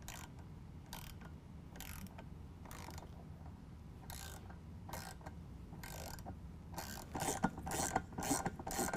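Hand ratchet with a 9/16 socket clicking as it drives a self-tapping bolt into aluminum, cutting threads. The clicks come about once a second at first, then quicker and louder near the end.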